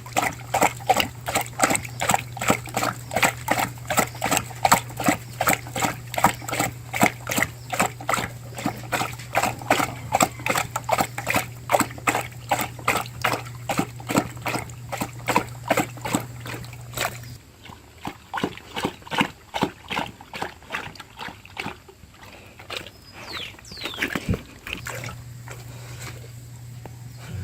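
A dog lapping water from a bowl: quick, even wet laps at about three to four a second. The laps turn slower, fainter and uneven in the last third.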